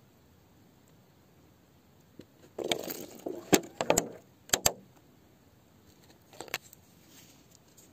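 Close handling noise: a burst of rustling with several sharp clicks about two and a half seconds in, lasting about two seconds, then two more clicks about six and a half seconds in.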